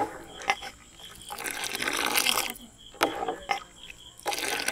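Metal ladle clinking against a steel pot and scraping through thickened, boiled-down milk as it is stirred: sharp clinks with longer rough scraping strokes in between.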